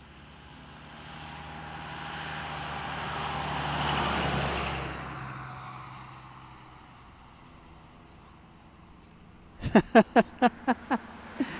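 Jet engines of an Airbus A320-family airliner swelling as it passes along the runway, loudest about four seconds in, then fading. Near the end comes a quick run of about seven sharp pops, louder than the jet.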